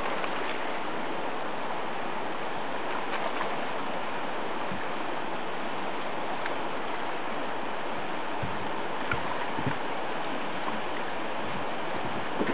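Steady rush of fast-flowing river water around a boat, with a few faint clicks near the end.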